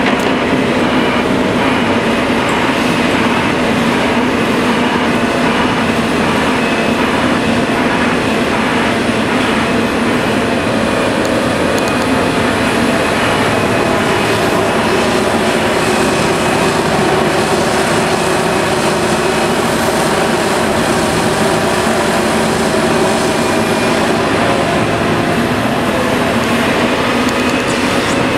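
Heavy diesel earthmoving machinery working steadily: a Liebherr 974B hydraulic excavator's engine and hydraulics running under load while it loads articulated dump trucks. A continuous loud drone, its pitch shifting from about halfway through.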